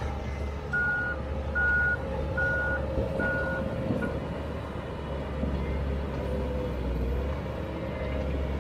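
Komatsu D31EX crawler dozer's diesel engine running steadily while its reverse alarm beeps four times and starts a fifth, a little over one beep a second, stopping about four seconds in: the dozer is backing up.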